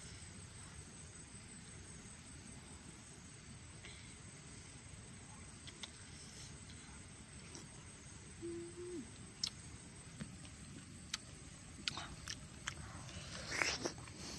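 Hands peeling the skin off a red dragon fruit: scattered small snaps and crackles in the second half, then a louder wet bite into the fruit's flesh near the end. A single short low note, about half a second long, sounds about halfway through over a quiet outdoor background.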